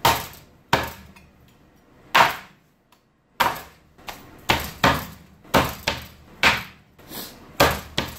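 A Chinese cleaver chopping a roast duck on a plastic cutting board: about a dozen sharp chops at an uneven pace, with a pause of about a second around the third second, then quicker chops.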